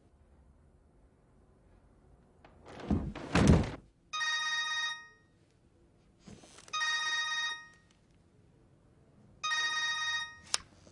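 Cell phone ringing three times, each ring a burst of several steady tones lasting about a second, a couple of seconds apart. Before the first ring comes a loud thump with rustling, and a short click follows the last ring.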